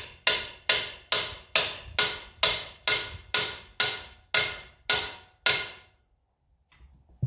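Metal being struck with a hammer twelve times at an even pace, a little over two blows a second, each blow ringing briefly, then stopping. A few faint clicks follow near the end.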